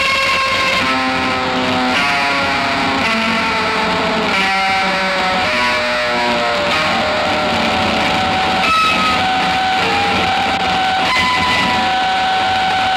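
Psychedelic guitar music from a four-track cassette recording: layered guitar notes held and changing about every second over a steady hiss.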